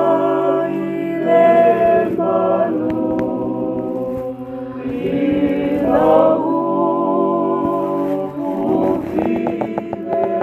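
Music of several voices singing together in harmony, in long held notes, with a few light clicks near the end.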